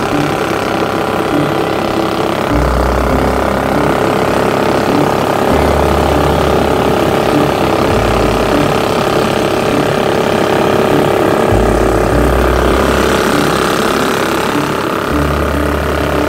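Predator 420cc single-cylinder engine driving a Mud-Skipper surface-drive mud motor, running steadily as the jon boat moves under way.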